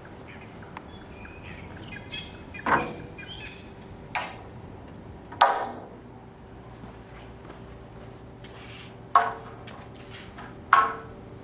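Frameless glass pool gate on Polaris soft-close hinges being swung open and let close, with five sharp clacks, each ringing briefly, as the gate and its latch hardware knock shut.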